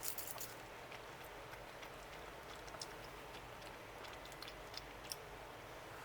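Faint scattered light clicks and taps, a quick cluster at the start and a few single ones later, over low steady room noise.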